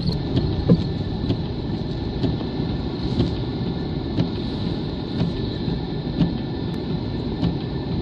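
Steady rumble of a car driving slowly, heard from inside the cabin, with a few light ticks.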